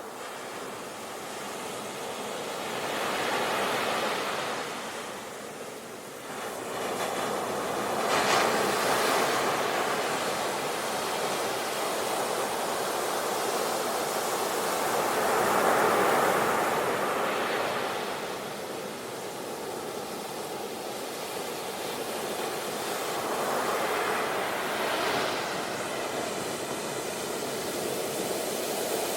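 Sea waves breaking on the shore: surf hiss that swells into a break and washes back every several seconds, the loudest surges about eight and sixteen seconds in.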